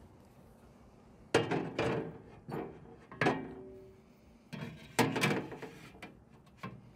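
A sheet-metal feed restrictor plate clanking against a metal storage box as it is set down inside: about half a dozen sharp clanks, starting about a second in, some with a brief metallic ring.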